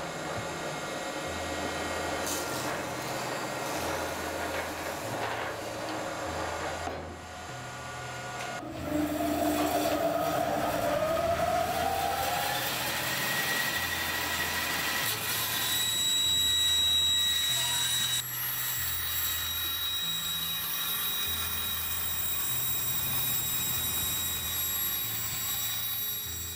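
Woodworking machines running: a horizontal boring machine's drill bit turning as a board is fed against it, then an electric motor spinning up with a rising whine about nine seconds in and a band saw running while a board is pushed through. A low pattern of bass notes, changing about once a second, runs underneath throughout.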